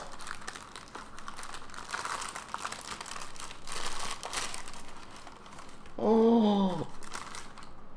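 Paper bakery bag and a cellophane wrapper crinkling and rustling as a wrapped cookie is drawn out of them: a continuous run of crackles that thins out near the end.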